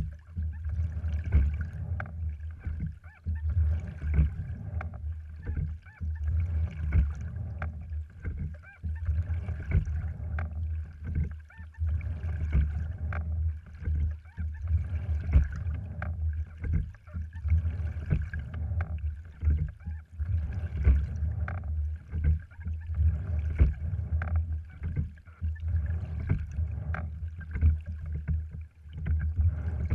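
A sliding-seat rowing wherry under way: water rushing along the hull and short knocks from the oars and rigging, rising and falling with each stroke about every two to three seconds, over a constant low rumble.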